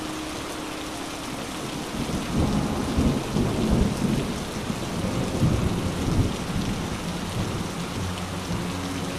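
Heavy rain hissing steadily on a wet street, with a deep, uneven rumble swelling up about two seconds in and dying back about two-thirds of the way through.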